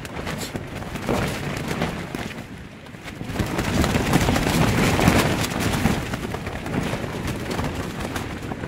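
Strong wind buffeting an MSR tent, heard from inside: the nylon walls and fly flap and snap against the flexing pole frame. A gust builds about three seconds in and stays loud, pushing the fabric in because the one-piece pole frame gives way to the wind.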